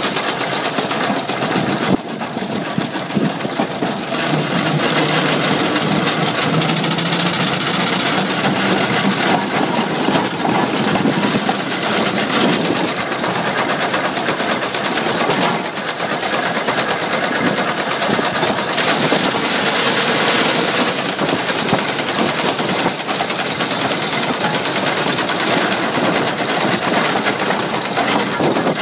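6-inch scale steam traction engine under way on the road: a fast, steady chuffing exhaust with the clatter of its engine motion.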